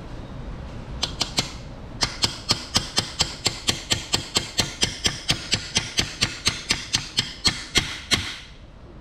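Hammer tapping metal on metal, seating a part in the weld-repaired clutch fork pivot boss of a Ford manual transmission. Three quick taps come about a second in, then a steady run of about four ringing taps a second for some six seconds.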